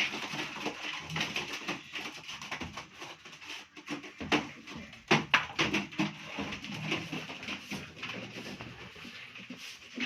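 Domestic birds in a small coop making low calls, among scrapes and knocks from the coop being cleaned; the loudest knocks come about four and five seconds in.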